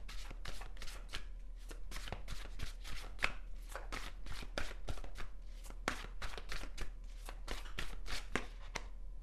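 A deck of tarot cards being shuffled by hand: a quick run of crisp card clicks and slaps, several a second, stopping shortly before the end.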